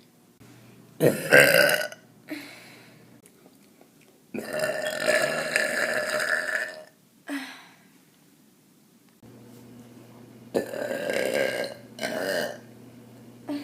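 A woman belching again and again: about six separate burps with short pauses between them, including one long drawn-out belch of about two and a half seconds near the middle.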